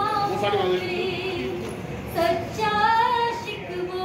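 A young girl singing unaccompanied, holding long, gliding notes with a short break for breath about halfway through.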